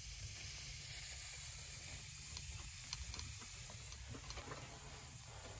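Steady hiss of pressurised gas blowing through an air-conditioning refrigerant line set, just after a foam pipe-wiper pig has been pushed out of the line, with a few faint clicks.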